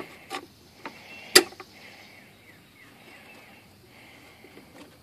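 A battery hold-down cover and wiring being handled and fitted over the battery: a few light knocks and clicks of parts, one sharp click about a second and a half in, with a faint scraping rustle between them.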